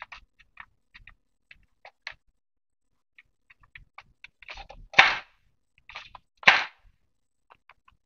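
Plastic toy bow and arrow being handled: light plastic clicks and taps, then two louder sharp snaps about a second and a half apart.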